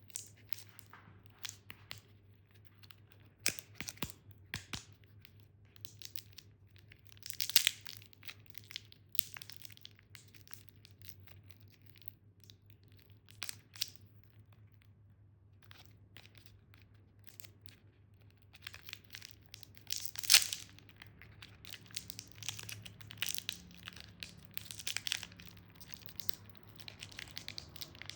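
Plastic candy wrappers being crinkled and torn open in irregular crackling bursts, with the loudest rips about seven seconds in and around twenty seconds, and the rustling getting busier in the last third. A faint steady low hum underneath.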